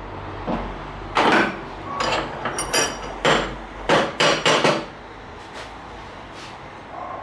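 Hammer blows, about nine strikes in a quick, uneven series, some with a metallic ring.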